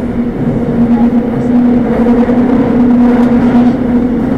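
Seoul Metro Line 5 subway train running between stations, heard from inside the car: a steady rumble with a constant low hum.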